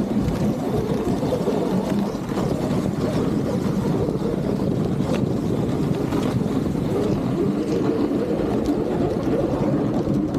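Steady rushing noise of a dog sled moving at speed: its runners sliding over packed snow, with wind buffeting the microphone.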